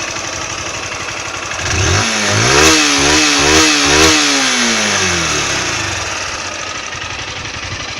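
Honda CG Titan 160 single-cylinder engine idling with a very loud valve tapping, which the owner takes for valves needing adjustment. About two seconds in it is revved in three quick blips, then drops back to idle.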